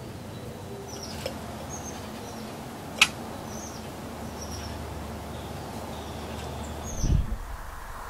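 Birds giving short high chirps every second or so over a soft outdoor hiss, with one sharp click about three seconds in and a low thump near the end.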